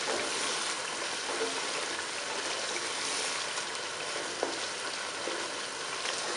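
Chicken korma masala sizzling in a nonstick pot while a spatula stirs and turns it, with a few light clicks of the spatula against the pot.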